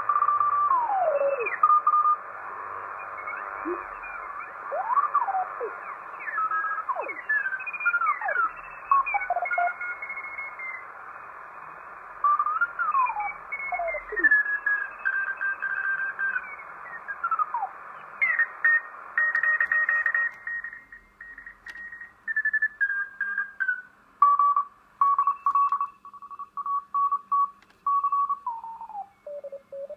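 Loudspeaker audio from a homebuilt single-board superheterodyne receiver being tuned down through the 80 m amateur band. Morse code signals slide down in pitch as whistles over band hiss. In the last third the hiss drops away and one Morse signal is heard as a steady tone keyed on and off, then slides down in pitch near the end as tuning moves on.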